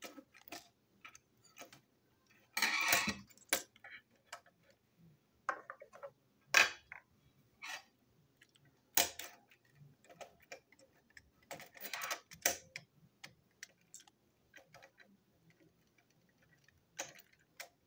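Scattered light clicks and taps of a plastic toy train chassis and a small screwdriver being handled. Two longer scraping rustles come in, one near the start and one about two-thirds through.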